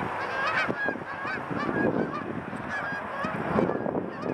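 A flock of Canada geese honking in flight after being flushed, many short calls overlapping throughout.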